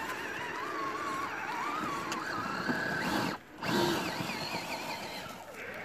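Brushless motor and drivetrain of a Traxxas TRX-4 RC crawler, a sensorless 4600 kV Sidewinder 3 setup, whining as the truck climbs, the pitch wandering up and down with the throttle. It cuts out briefly about three and a half seconds in, then picks up again.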